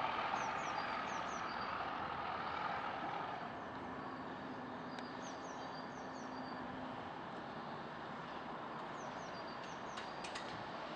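Departing Class 31 diesel-hauled test train, its engine and wheel noise fading into the distance over the first few seconds and then holding as a low, steady rumble. Birds chirp briefly several times.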